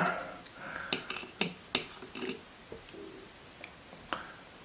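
Folding multi-tool being handled: a series of sharp metal clicks with light scraping as a stiff tool is worked out of the handle, the tool needing oil.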